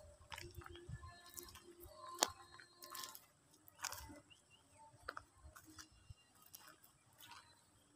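Faint footsteps on a dirt path: a loose series of soft clicks and crunches at about walking pace.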